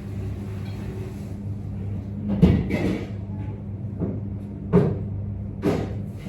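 A few short knocks and clatters, the loudest about two and a half seconds in and others near five and six seconds, over a steady low hum.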